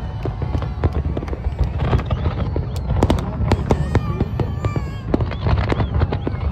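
Aerial fireworks display bursting in rapid succession: many sharp bangs and crackles, one after another, over a continuous low rumble.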